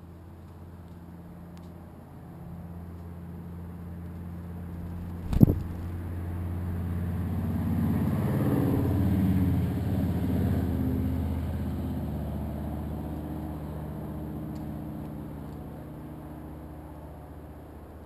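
A motor vehicle's engine hum that slowly grows louder to a peak around the middle and then fades away, as a vehicle passing by. A single sharp tap close to the microphone about five seconds in.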